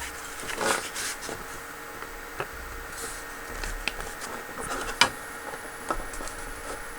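Handling noise from a hard plastic 3D-printed part: scattered light clicks and taps, with one sharp knock about five seconds in, over a faint steady room hum.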